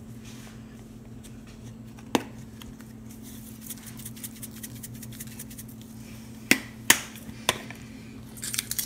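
Sharp clicks and taps from a seasoning shaker jar as dried Italian seasoning is shaken out over toast on a plate: one about two seconds in, three more a little past the middle, and a quick flurry near the end, over a steady low hum.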